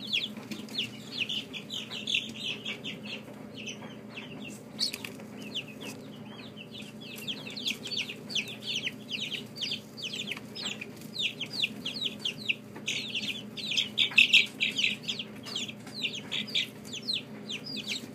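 Young chicks peeping constantly in many short, high, falling cheeps, thickest about three-quarters of the way through, over a steady low hum.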